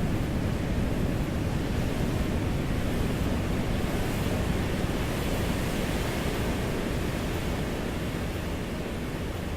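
Processed beach recording of wind and ocean waves, made to sound distant: a steady rushing noise heavy in the low end, swelling a little midway and slowly fading near the end.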